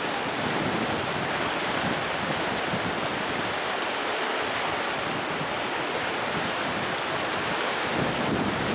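Whitewater river rapids rushing, a steady even noise of churning water.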